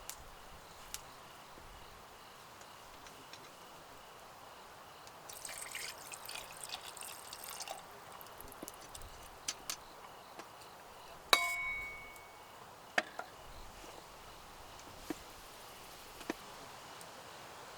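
Small handling sounds of camp gear: a crackling rustle for a couple of seconds, then scattered light clicks and one sharp clink that rings briefly, like a cup or utensil being knocked, about eleven seconds in.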